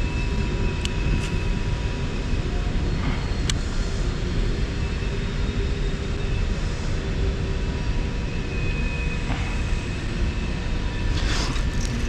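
Steady outdoor rumble, heavy in the low end like wind on the microphone, with a faint steady hum under it and a few light clicks in the first few seconds.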